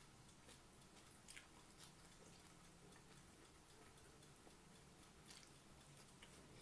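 Near silence with faint chewing and a few soft mouth clicks and lip smacks from someone eating by hand.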